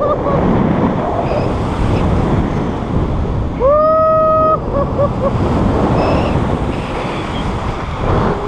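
Steady rush of wind over the camera microphone during a tandem paraglider flight. About halfway through, a long high-pitched whoop rises, holds for about a second and breaks off into a few short yelps.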